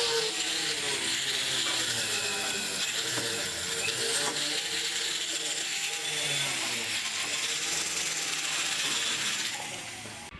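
Steady mechanical rasping, whirring noise that fades out near the end.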